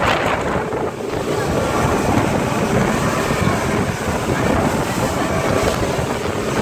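Speedboat under way on its outboard motor, a steady engine drone mixed with rushing water from the hull and wake. Wind buffets the microphone.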